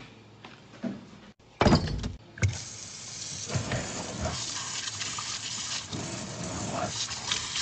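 A couple of knocks in the first two seconds, then tap water running steadily into a stainless steel sink, splashing over a raw leg of lamb as it is rinsed.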